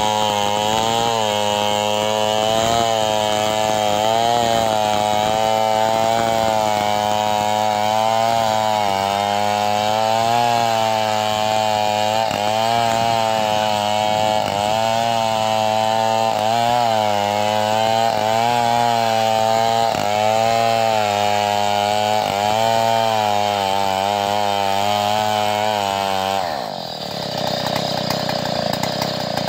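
Two-stroke chainsaw ripping a tangkil (melinjo) log lengthwise, running under load with its engine pitch rising and falling as the bar works through the cut. Near the end the engine note drops sharply.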